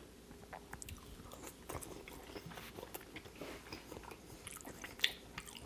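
Close-miked chewing of a mouthful of sautéed mushrooms: quiet wet clicks and mouth smacks, with a sharper click about five seconds in.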